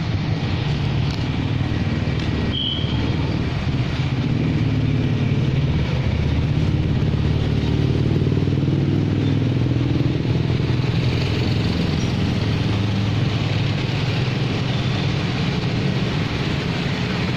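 Street traffic: car and motorcycle engines running close by in a steady low rumble.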